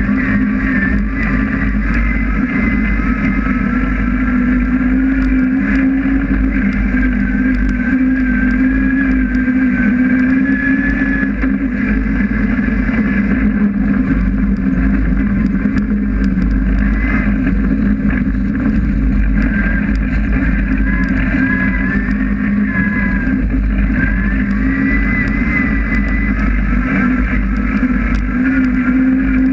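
Honda S2000's 2.4-litre 16-valve four-cylinder engine running hard under racing load, heard inside the stripped, roll-caged cabin. Its pitch rises and falls as the driver works the throttle.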